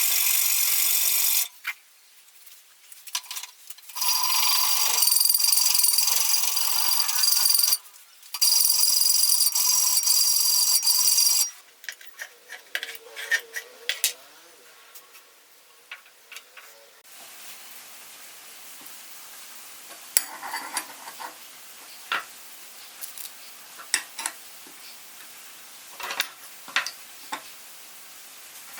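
A power tool run in three short bursts with a steady high whine, switched on and off, followed by scattered clicks, knocks and handling noises of workshop work.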